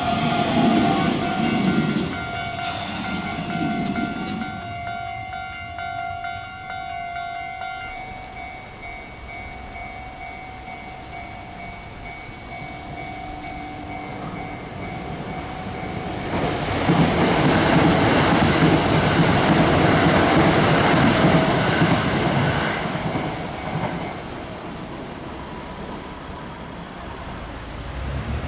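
Level-crossing warning bell ringing while a Hanshin Railway train rumbles past over the rail joints; the bell stops about eight seconds in. After a quieter spell, a train passes loudly for about six seconds from around seventeen seconds in, then fades away.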